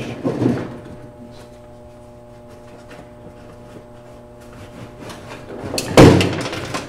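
A galvanized metal trash can being handled and tipped over a workbench: a short rattle about half a second in, then a loud sudden clattering thump near the end. A steady electrical hum runs underneath.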